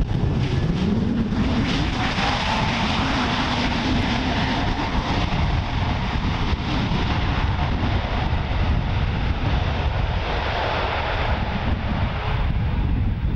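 The CFM LEAP-1A jet engines of an Airbus A321neo during its landing roll on the runway: a loud, steady jet roar, with a tone that rises in pitch in the first couple of seconds and then holds.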